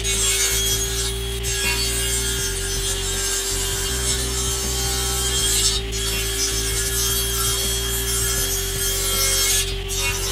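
Table saw running and cutting into a wooden block fed over the blade with push sticks in several passes. A steady tone sits under the cutting noise, which dips briefly between passes.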